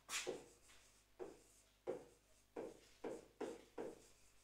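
Handwriting on a board: about seven short, faint scratchy strokes as a word is written out.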